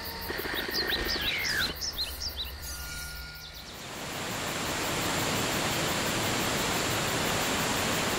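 Short bird-like chirps and whistles for the first few seconds. From about four seconds on, a steady rushing of falling water: waterfall ambience.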